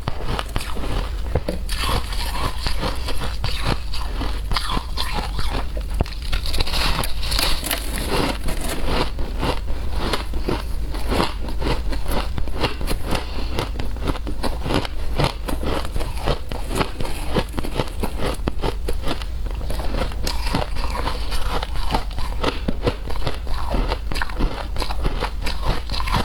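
Shaved ice being bitten and chewed close up: a continuous run of dense, irregular crunches.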